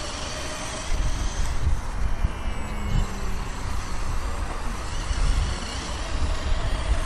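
Wind buffeting the microphone in an uneven low rumble, with the faint whine of a radio-controlled model airplane's motor overhead, its pitch sliding as the plane passes.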